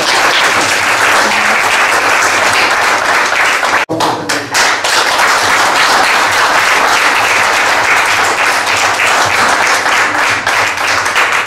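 A small group applauding, with steady clapping and a brief break about four seconds in.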